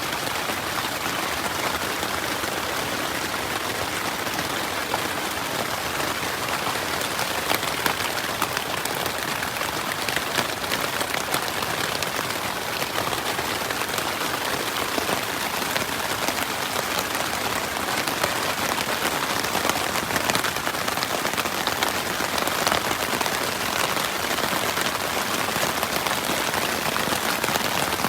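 Heavy rain falling steadily, a dense hiss made of countless individual drop impacts.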